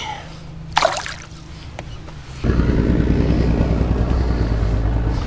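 A motorboat engine runs steadily at a low pitch, starting suddenly about two and a half seconds in and stopping just before the end. About a second in there is a brief splash as the released bass goes into the water.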